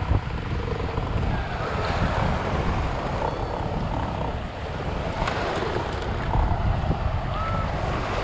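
Wind buffeting the microphone over water splashing and lapping against the hull of a small inflatable boat under way.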